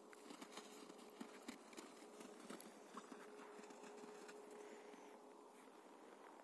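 Faint, irregular crunching of footsteps in snow, many small ticks a second, over near silence with a faint steady hum.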